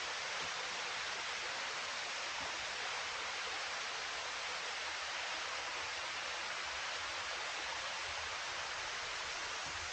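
Steady, even rush of a waterfall, unchanging throughout.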